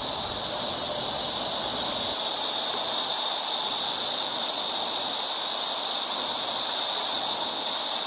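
Cicada singing: a steady, high-pitched buzzing drone that grows a little louder about two seconds in.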